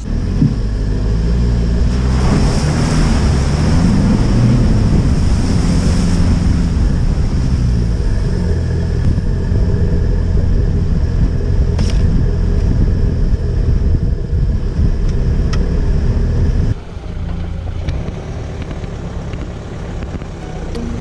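Toyota Fortuner's diesel engine and tyres rumbling as it drives a rough, rutted bush track, the engine note rising and falling through a louder stretch early on. The sound drops suddenly to a quieter rumble about three-quarters of the way through.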